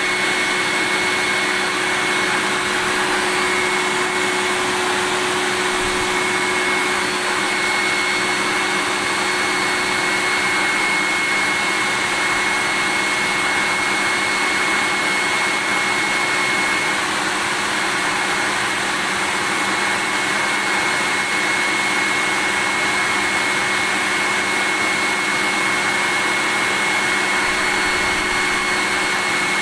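Vacuum cleaner running steadily: a continuous rush of air with a thin, steady high whine over it.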